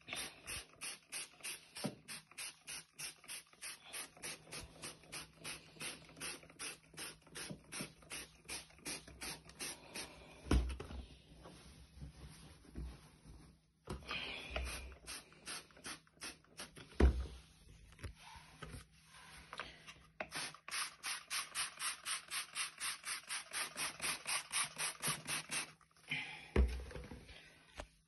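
Hand trigger spray bottle of stain remover being pumped over and over, a quick hiss about three times a second, in two long runs with a pause between. Two dull thumps break in, the louder one in the second half.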